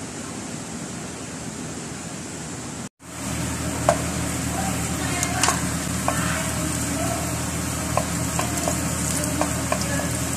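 Minced garlic sizzling in hot oil in an aluminium pot, stirred with a wooden spatula that clicks and knocks against the metal now and then. It starts about three seconds in, after a moment of steady hum that cuts off abruptly.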